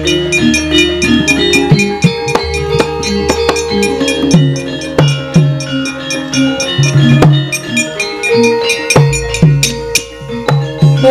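Javanese gamelan ensemble playing wayang kulit accompaniment: rapid hand-drum strokes over steady ringing metallophone notes, with a deep gong tone sounding near the start and again about nine seconds in.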